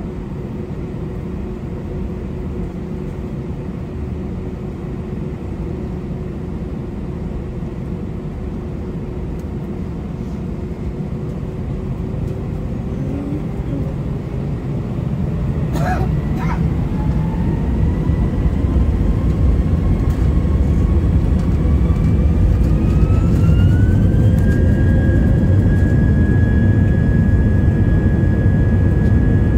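Airbus A320's IAE V2500 jet engines heard from inside the cabin, spooling up from a steady drone to takeoff thrust. A whine climbs in pitch over about ten seconds from the middle onward and then holds steady, as the rumble grows louder. There are two sharp clicks about halfway through.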